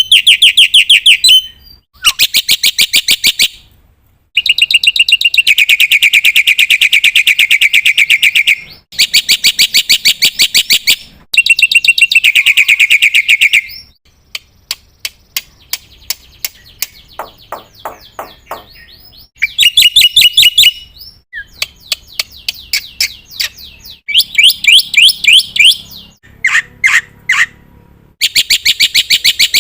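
Black-winged starling (jalak putih) calling loudly in bouts of very rapid, rattling repeated notes, each burst lasting one to four seconds with short gaps between. A quieter run of scattered clicking notes comes in the middle.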